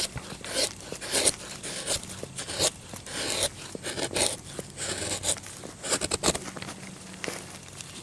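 Knife blade shaving thin curls down a wooden stick to make a feather stick: a dry scraping rasp with each stroke, about one stroke every two-thirds of a second.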